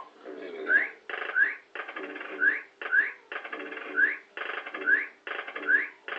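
Bellfruit fruit machine's electronic sound effect as its reels are stepped up in a 'wheels up and down' feature. A short buzzing run of tones ends in a rising chirp, about seven times at slightly uneven intervals.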